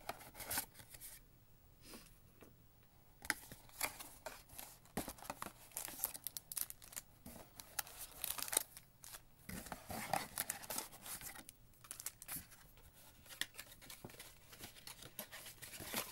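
A cardboard trading-card mega box being torn open and its wrapped card packs pulled out and set down: irregular tearing, crinkling and crackling of cardboard and pack wrappers, with many sharp clicks.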